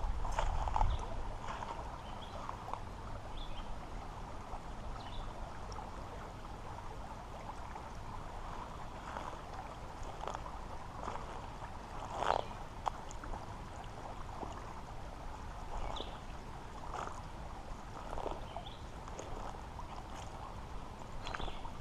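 Shallow creek water running steadily over rocks, with scattered short knocks and clicks, the loudest about halfway through.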